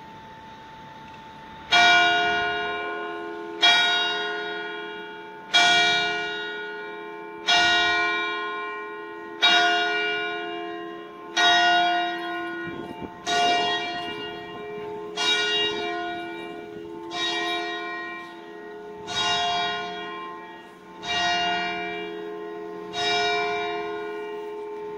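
A single church bell tolling slowly: twelve strikes about two seconds apart, each one ringing on and fading before the next. It is the knell rung for the minute of silence in mourning for coronavirus victims.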